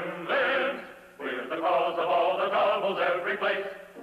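Male voices singing a cartoon song with musical accompaniment, the sung notes wavering, with a brief break about a second in.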